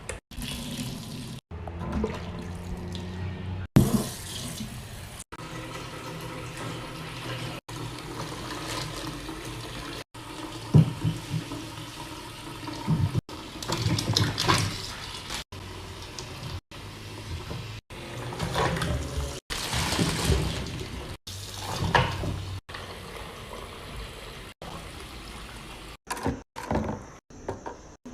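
Tap water running into a sink, with knocks and clatter of items being handled, in a string of short clips cut abruptly one after another.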